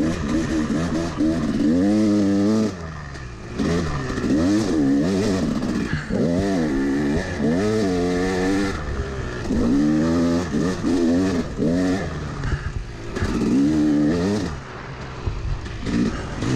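Yamaha YZ250 two-stroke dirt bike engine ridden hard, its pitch climbing and dropping again and again as the throttle is opened and shut and gears change. The throttle is off briefly about three seconds in and again near the end.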